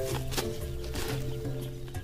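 Background music of held chords over a low bass note.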